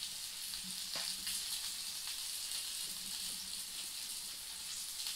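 Striper fillet and potatoes frying in oil and butter in a pan: a steady sizzle, with a light click about a second in.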